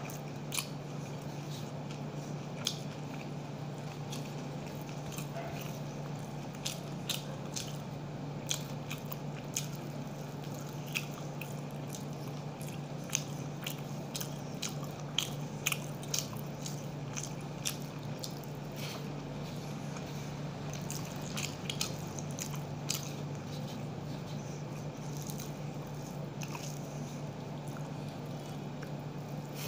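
A person eating rice by hand from a metal plate: irregular sharp clicks and smacks of chewing and of fingers working the rice against the plate, over a steady low hum.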